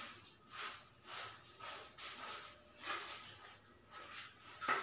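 Faint, repeated rubbing strokes on a hard surface, about two a second, like hand work on a floor.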